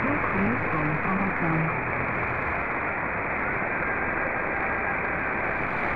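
Shortwave radio reception of a weak pirate broadcast on 6205 kHz in synchronous AM: a faint voice in heavy static that fades out about a second and a half in, leaving steady hiss. Heard through a narrow receiver filter that cuts off all the treble.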